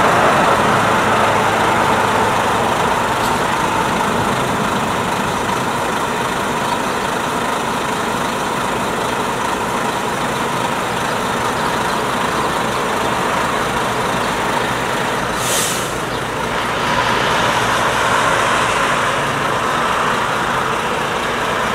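McDonnell Douglas MD-82 airliner's two rear-mounted Pratt & Whitney JT8D turbofans running at takeoff thrust during the takeoff roll: a steady jet roar with a whine, heard across the airfield. A brief hiss cuts in about two-thirds of the way through, and the roar swells slightly after it.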